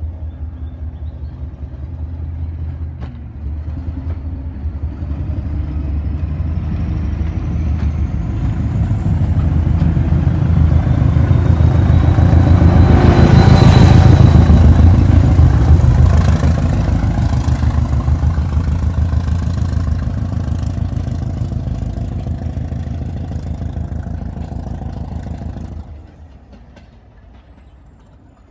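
'Thumper' diesel-electric multiple unit departing: its English Electric 4SRKT diesel engine gives a deep, rhythmic thumping, with a whine that rises in pitch as the train gathers speed. It grows loud as the unit passes close by about halfway through, then fades as it moves away, falling off sharply near the end.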